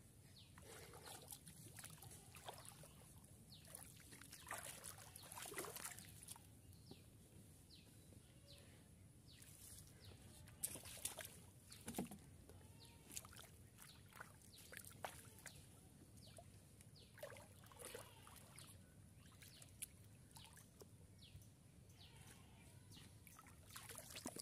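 Faint splashing and sloshing of shallow muddy water as bare feet wade and hands grope through it, in scattered small splashes.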